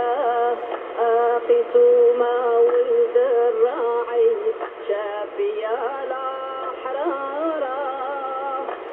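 Liturgical singing with music, received as a longwave AM broadcast on a Yaesu FRG-100 communications receiver: held and sliding sung notes, with the thin, narrow sound of AM radio audio.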